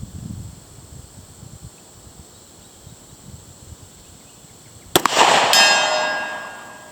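A single pistol shot from a Springfield XD-M in .40 S&W, then about half a second later the clang of the bullet striking a hanging steel silhouette target 100 yards away. The steel rings and fades out over more than a second, the sign of a hit.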